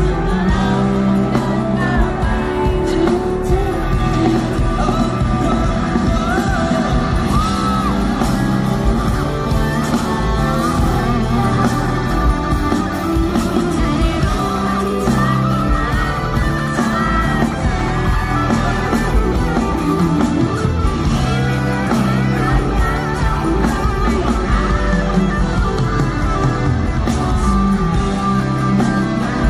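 Live rock band playing loudly, with electric guitar, bass and drums, and singing voices over the music.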